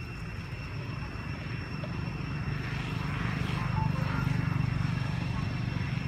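Low, steady engine drone from a passing motor, growing louder about three seconds in and easing a little near the end.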